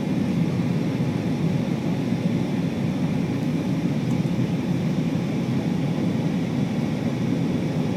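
Steady cabin noise of an Airbus A320 airliner in flight: engine and airflow noise heard as an even, low rumble with no change in level.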